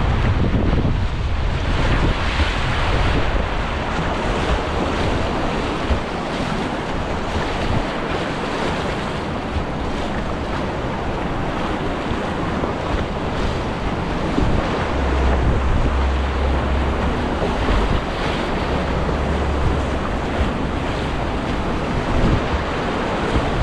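Whitewater river rapids rushing and splashing around a kayak, close to the water. Wind buffets the microphone at times with a low rumble.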